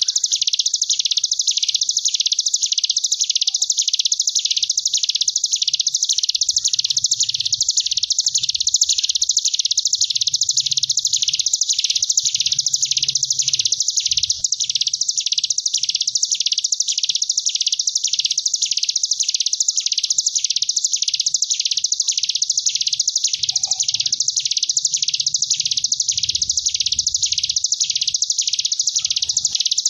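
Ciblek gunung (hill prinia) giving its continuous, wasp-like buzzing trill ("ngebren tawon"), swelling and falling in even waves a little more than once a second without a break.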